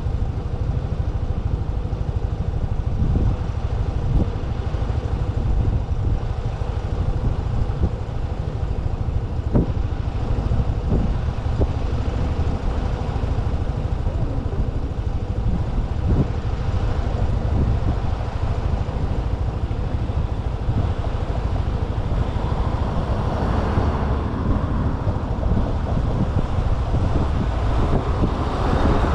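Motorcycle riding along the road: a steady engine hum under low road and wind rumble, with a few short knocks. A rushing noise builds over the last few seconds.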